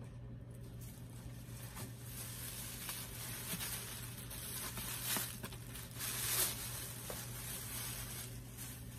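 Thin plastic grocery bag rustling and crinkling as a boxed item is pulled out of it, in a run of scratchy bursts that are loudest about five and six and a half seconds in.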